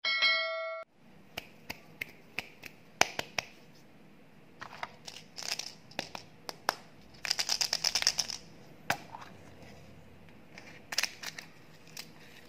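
A short bright chime opens it, like a subscribe-button notification sound. Then hands handle and open candy packaging: sharp clicks and taps of hard plastic candy containers and crinkling of plastic wrappers, with a dense run of crinkling about seven seconds in.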